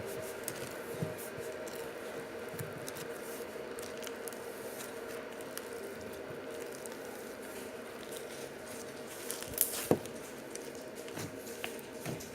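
Jiggly slime being squished and poked by hand, giving soft squelches and small scattered clicks, with two sharper pops a little under ten seconds in, over a steady background hum.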